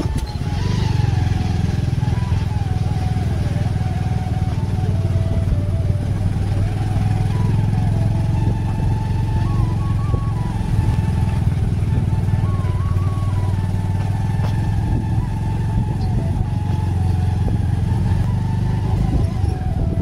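Motorcycle ridden steadily over a gravel road, its engine and the road making a steady low rumble. Over it plays a faint thin melody of background music.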